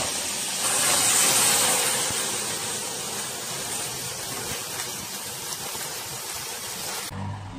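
Pork steaks sizzling hard in a frying pan as brandy is flambéed over them, the flames and spitting fat making a loud, steady hiss. The hiss is loudest about a second in, eases a little, then cuts off abruptly near the end.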